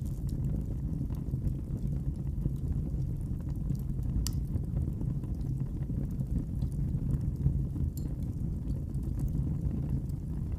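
Wood fire burning in a fireplace: a steady low rumble with sparse sharp crackles and pops, one louder pop about four seconds in.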